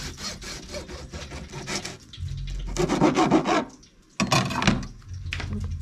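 Kitchen knife sawing through a grilled vegetable spring roll onto a plastic cutting board, making rapid rasping strokes that come in louder runs about midway and again near the end.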